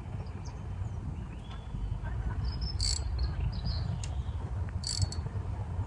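Outdoor ambience: a steady low rumble with scattered short, high chirps, and two sharp clicks about three and five seconds in.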